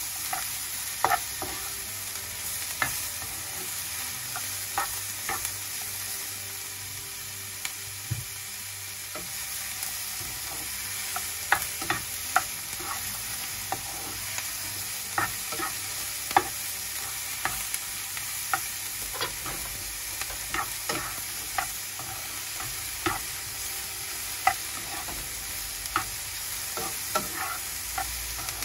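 Sliced mushrooms and chopped onion sizzling as they sauté in a nonstick frying pan. Irregular sharp scrapes and taps come from a spatula stirring them against the pan.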